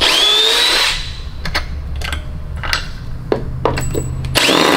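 Milwaukee cordless drill backing a long screw out of a wooden crate: the motor spins up with a rising whine at the start, runs on, and spins up again near the end.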